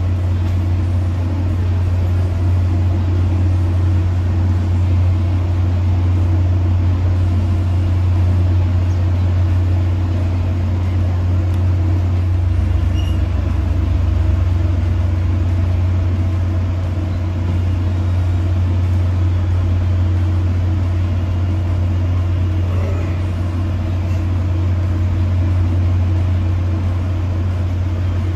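Steady low machine drone heard inside a Tri-Rail passenger coach standing at a station, with a deeper note added for a couple of seconds about halfway through.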